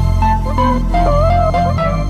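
Background electronic music: a melody of short synth notes over a steady bass line.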